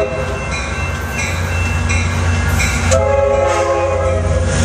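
Amtrak F59PHI diesel locomotive passing close by at low speed, its engine and wheels making a steady low rumble. Its hybrid K5LA air horn, a chord of several tones, cuts off just as the sound begins, then blows again about three seconds in for about a second and a half.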